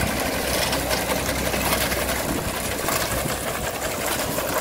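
Fordson Dexta tractor running as it pulls a McCormick reaper and binder, with the binder's ground-driven cutter and knotter mechanism clattering rapidly and steadily as it cuts and ties oats.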